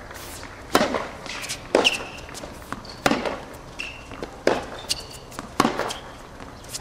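Tennis rally on a hard court: a serve struck about a second in, then the ball hit back and forth with sharp racket strikes roughly every second. Short high squeaks of tennis shoes on the court come between the shots.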